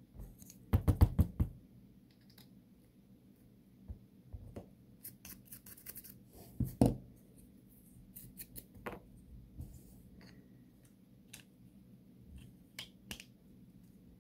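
Small plastic clicks and taps from a Mazda key fob being handled as a new battery is fitted and the casing pressed back together. There is a louder cluster of clicks about a second in and another sharp click near seven seconds, with lighter scattered ticks between them.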